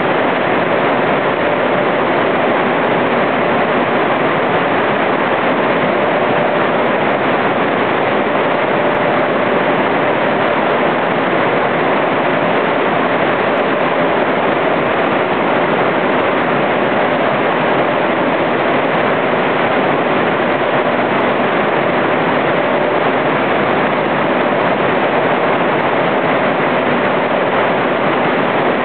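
Loud, steady rushing noise with a faint steady hum, from the motors and moving air of a kinetic installation that swings large painted fabric banners on hanging rods.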